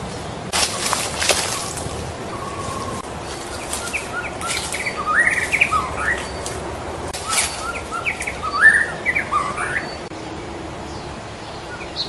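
White-rumped shama singing: phrases of clear, quick whistled notes that sweep up and down, with brief scratchy noises in the first couple of seconds.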